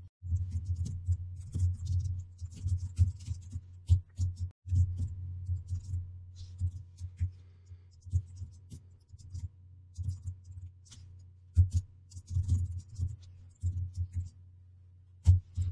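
Computer keyboard typing: irregular runs of keystrokes, each a click with a dull low thud, with short pauses between words.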